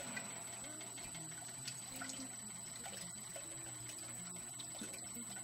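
Liquid running steadily out of the concentrate line tubing of a benchtop membrane filtration unit, with the bypass valve closed so that all the pumped flow leaves through that line. A faint low hum lies under it.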